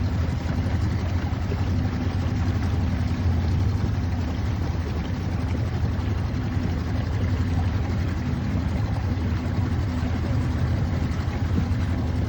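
Motorboat's outboard engine running steadily, a constant low drone.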